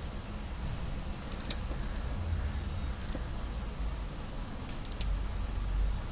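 A few light metallic clicks of a wrench working the nut on a car starter motor's solenoid terminal: one about a second and a half in, another about three seconds in, and a quick run of three near the end, over a low rumble.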